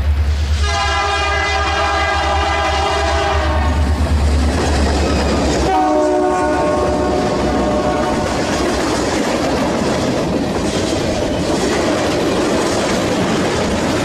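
Diesel locomotive air horn sounding a long multi-note chord over a deep engine rumble. After a sudden change, a second locomotive horn sounds for about two seconds, followed by the steady rumble and rail noise of a train rolling past.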